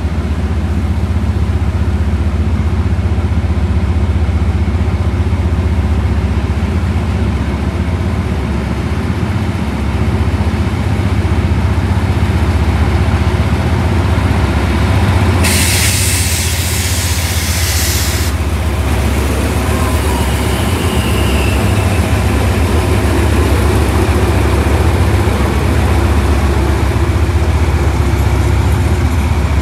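Diesel train engine running steadily with a low hum, and a loud hiss of air about halfway through that lasts about three seconds.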